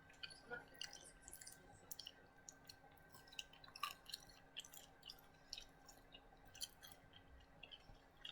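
Faint close-up chewing and mouth noises of someone eating chicken wings: many small, irregular wet clicks and crackles over a low steady hum.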